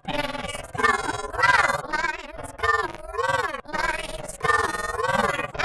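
An electronically distorted voice chanting, its pitch warped into repeated swooping rises and falls, in the style of a 'Gamavision Csupo' effect.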